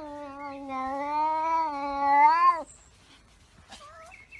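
A cat yowling: one long call of about two and a half seconds that rises at the end and then breaks off. A short, faint call follows near the end.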